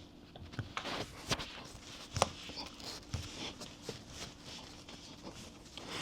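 Scattered light clicks and knocks, the sharpest about two seconds in, as a T-handle tire-plug reamer is pushed and twisted into a nail hole in a tire.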